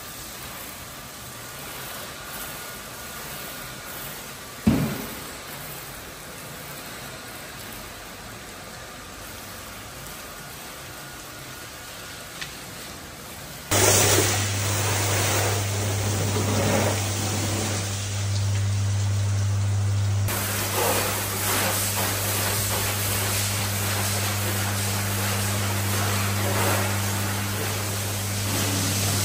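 Pressure-washer spray hissing against a truck's bodywork and wheels, with a single thump about five seconds in. About 14 seconds in it turns suddenly louder, and a steady low hum of machinery runs under the spray.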